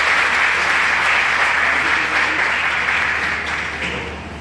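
Audience applauding, loud at first and dying down near the end.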